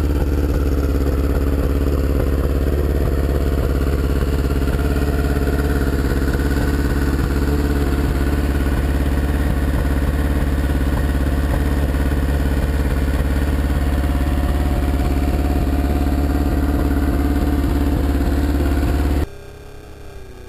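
Stunt sport motorcycle's engine idling steadily at an unchanging pitch. It cuts off about a second before the end, leaving a much quieter sound.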